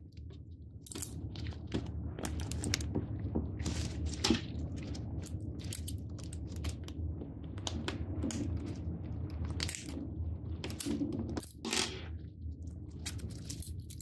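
Plastic padlock shims and a Master Lock No. 3-style laminated steel padlock handled by gloved hands: irregular clicks, scrapes and small metallic rattles as the shims are worked down between the shackle and the locking mechanism, over a low steady hum.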